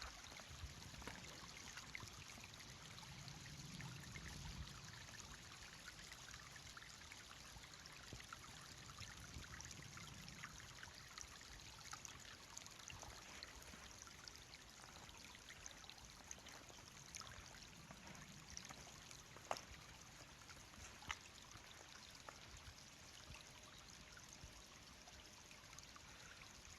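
A small stream running faintly under ice and snow, a steady quiet rush of water. Two sharp clicks break in about two-thirds of the way through.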